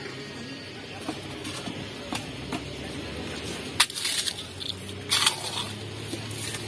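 A street-food vendor's hand crushing a crisp topping over plates of chaat, two short crunching crackles about four and five seconds in. Just before the first there is a sharp clink of a utensil, and small clicks of spoons and dishes run through.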